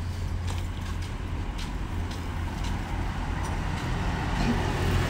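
Steady low rumble of a motor vehicle's engine running, with a few faint light clicks over it.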